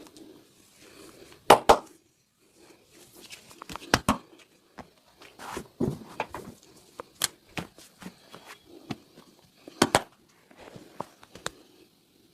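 Hands working over a person's back, neck and shoulders in a vigorous massage: irregular rubbing and patting broken by several sharp slaps or cracks, the loudest a quick pair about a second and a half in and another late on.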